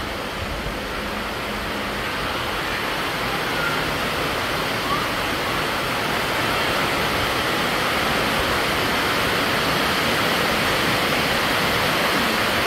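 Steady rushing hiss of heavy rain, growing a little louder over the first few seconds and then holding even.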